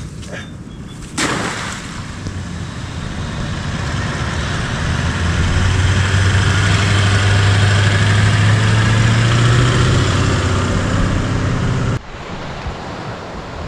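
Toyota Troop Carrier driving over soft sand toward the microphone, its engine note swelling and rising slightly as it nears. It is loudest about halfway through and cuts off suddenly near the end, leaving wind noise. A sharp noise comes about a second in, before the engine sound builds.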